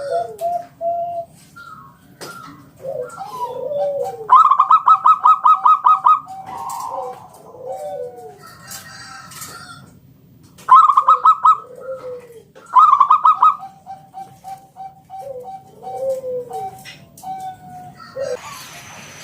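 Zebra dove (perkutut) cooing: loud fast staccato phrases of many short notes, three of them, with softer lower repeated coos and drooping notes in between.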